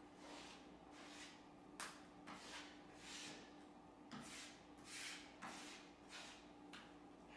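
Faint repeated swishing strokes of a hand-held painting tool dragged across a paint-covered canvas, a little under two strokes a second, with a couple of sharper clicks among them.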